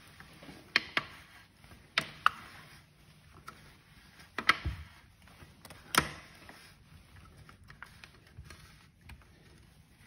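Grind-adjustment collar of a Compak K3 espresso grinder being turned by hand toward its finest, locked setting: a string of sharp, irregular clicks and knocks as the stiff collar is gripped and wrenched round, the loudest about six seconds in, then only faint handling.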